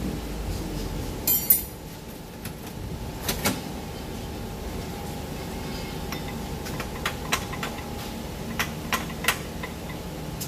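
Metal hand tools clinking against each other and against engine-bay metal as a mechanic works, a scatter of sharp clicks and clinks with the loudest about one and a half seconds in.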